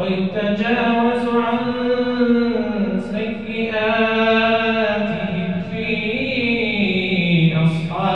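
A young male reciter chanting the Quran in slow, melodic tajweed recitation, in long held notes that rise and fall slowly.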